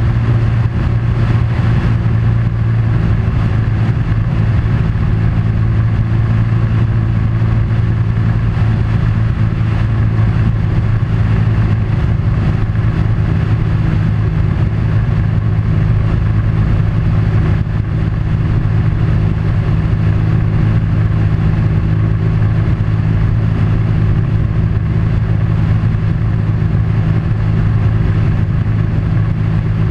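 Vehicle engine running steadily at a constant speed: an unbroken low hum with road or running noise over it.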